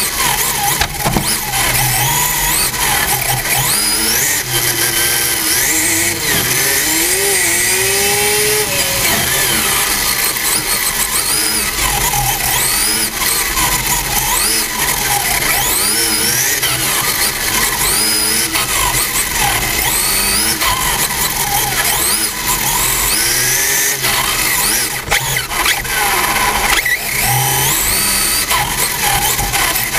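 Radio-controlled touring car heard from on board while driving at speed. Its motor and drivetrain whine rises in repeated glides as it accelerates and drops off between them, over constant rumble and tyre noise.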